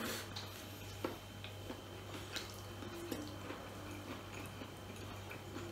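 Eating sounds: soft chewing with a few scattered small clicks and taps of fingers and food on a plate, over a steady low hum.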